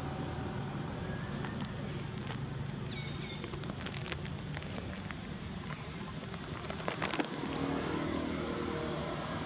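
Steady low mechanical hum over outdoor background noise, with a few sharp clicks about three seconds in and again about seven seconds in.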